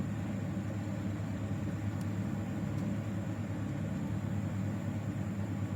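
Steady low background rumble with a faint hiss, unchanging throughout.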